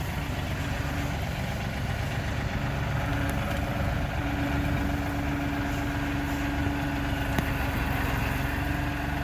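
John Deere 3032E compact tractor's three-cylinder diesel running steadily as it pulls a middle buster down a potato row, with a steady whine joining in about four seconds in.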